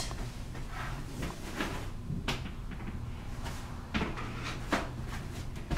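Several light knocks and clunks as a massage table's headrest is fitted into its mount, the clearest about two, four and nearly five seconds in, over a low steady hum.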